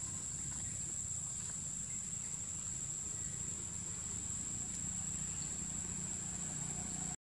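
Insects droning in one steady high-pitched whine over a low, steady rumble. Both cut off suddenly near the end.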